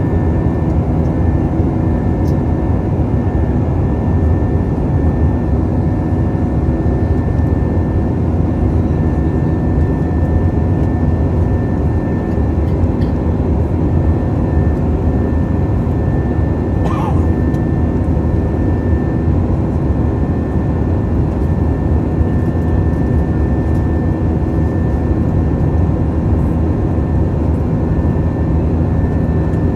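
Cabin noise of an Airbus A320 heard from a window seat beside the wing during climb-out: the jet engines' steady drone and the rush of air, with a thin steady high whine running through it.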